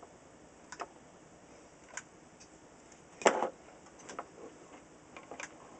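Irregular light clicks and taps from hands handling a tube radio chassis, its wiring and tools on a workbench, with one louder knock about halfway through.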